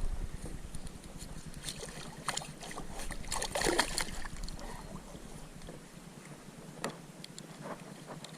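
Scattered small knocks, rustling and water noise of handling gear aboard a fishing kayak, with a louder rustling stretch about three and a half seconds in and a sharp click near the end.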